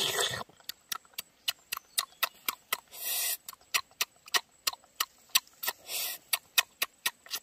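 Whole squid grilling on skewers directly on hot charcoal embers, crackling with frequent sharp pops, about four a second. Short bursts of hiss come three times, about three seconds apart.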